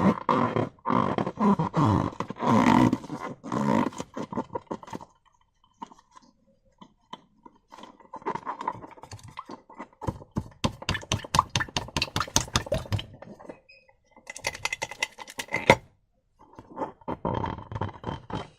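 Slime being squeezed and worked by hand: sticky, wet crackling and squelching that comes in several bursts with short pauses between them.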